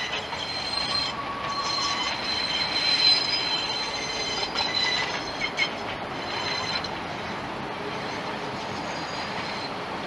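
Train wheels squealing on a curved track: a high steady squeal of about 4,000 hertz, with a lower whine joining for about a second, over continuous rolling noise. The squeal is set off by stick-slip between wheel and rail in the curve.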